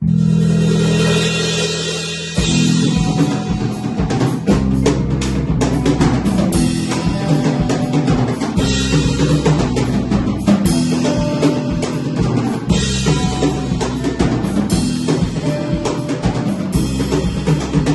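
Instrumental trio of drum kit, bass and guitar playing. It opens on a held chord for about two seconds, then the drum kit comes in with bass drum, snare and rimshots under the bass and guitar.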